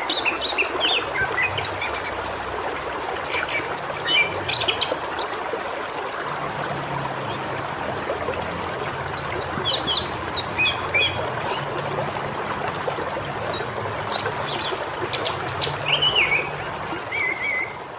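Several wild birds chirping and whistling in quick, varied phrases over a steady background hiss.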